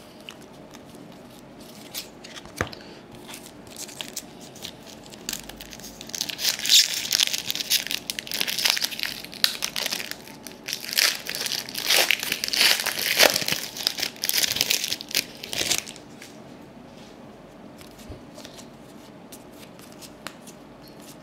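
Trading card pack wrapper being torn open and crinkled: a long run of loud crackling from about six seconds in until about sixteen seconds, with a few soft clicks of card handling before and after.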